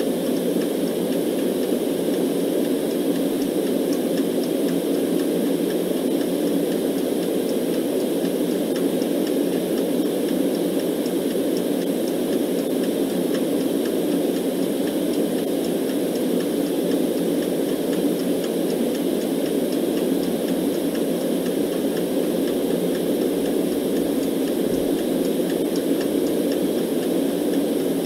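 Steady, deep, muffled noise (a white-noise sleep track) with a clock ticking faintly and evenly over it.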